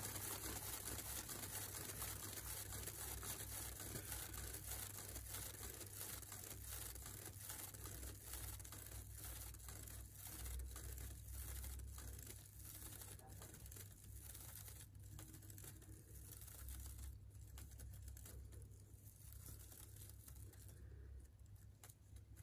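A paint-covered board spinning on a turntable, excess acrylic pouring paint flinging off its edge and spattering onto a plastic drop sheet: a crackly pattering that fades gradually as the spin slows.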